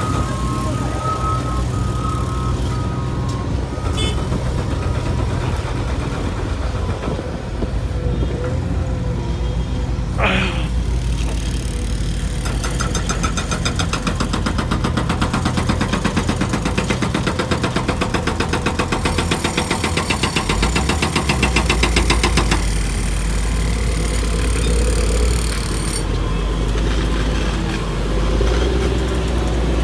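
Heavy construction machinery engines running steadily, with a rapid, even pulsing rhythm that starts about twelve seconds in and stops about ten seconds later, and a short rising whistle partway through.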